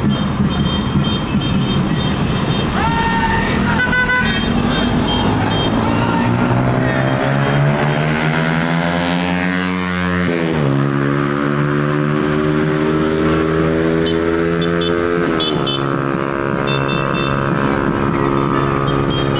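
A motor vehicle's engine running close by. Its pitch climbs steadily for several seconds, drops sharply about ten seconds in, then holds, and drops again about fifteen seconds in.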